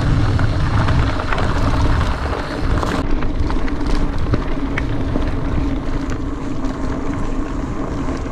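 Wind buffeting the microphone and mountain-bike tyres rolling fast over a dirt and gravel forest track, with a steady low hum and scattered small clicks and rattles from bumps. The wind rumble is heaviest in the first two seconds.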